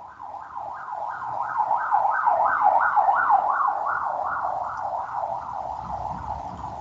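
Emergency vehicle siren in a fast up-and-down yelp, about three sweeps a second, swelling and then slowly fading as it passes.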